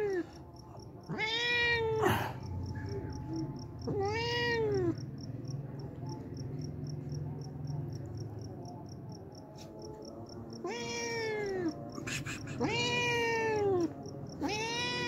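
Hungry stray cat meowing for food, about five loud meows, each rising then falling in pitch, with longer gaps in the middle. Insects chirp steadily and faintly in the background.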